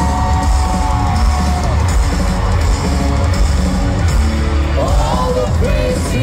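A live rock band playing loud through an arena PA, heard from the crowd, with heavy bass and drums. A singing voice comes in near the start and returns about five seconds in.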